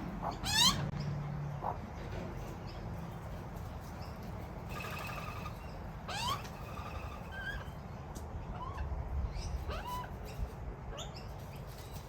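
Australian magpies calling. A loud rising squawk comes under a second in, a raspy call about five seconds in and another rising call soon after, then scattered shorter calls and chirps.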